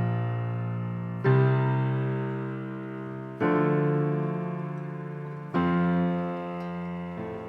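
Piano playing slow chords, a new chord struck about every two seconds and left to ring and fade: the instrumental intro of a song.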